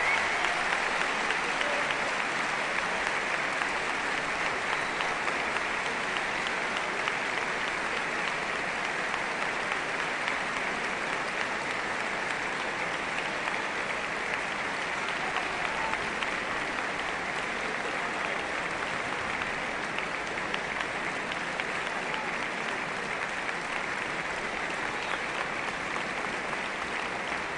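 Concert hall audience applauding, a steady, sustained round of clapping from a large crowd.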